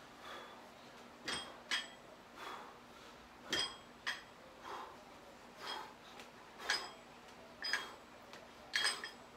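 Metal plates on a pair of 25 lb dumbbells clinking with a short ringing sound several times as they are lifted through deadlifts and overhead presses, between heavy breaths about once a second.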